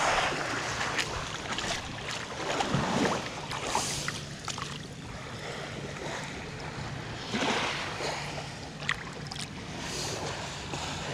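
Shallow lake water sloshing and splashing around hands holding a carp in the water before its release, in several separate swishes.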